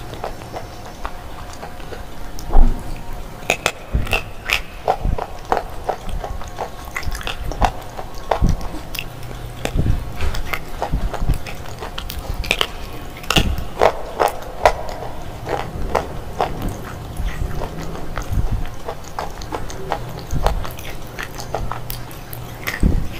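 Crunching and chewing of hard, brittle slate pieces bitten off close to the microphone: many sharp, irregular crunches with quieter chewing between them. There is one especially loud crunch a few seconds in.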